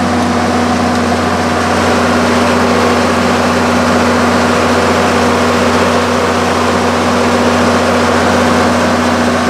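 Onan 80 kW diesel generator set, driven by a six-cylinder turbocharged Cummins diesel, running steadily at constant speed with an even hum.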